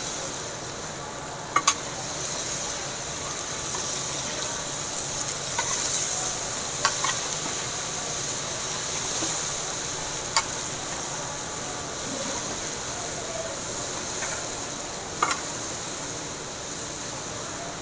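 Food sizzling in hot oil in a cooking pan, with a few sharp clinks of a spoon or spatula against the pan while stirring.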